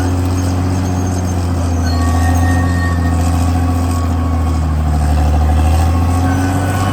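CAT D6R XL bulldozer's diesel engine running steadily under load as a deep, even hum that swells slightly twice.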